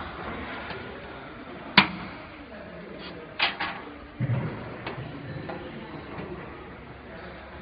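AC power connector being pushed into the input socket on a fiber laser source: one sharp click about two seconds in as it seats. A couple more clicks and a soft low thump follow as the plug and cable are handled.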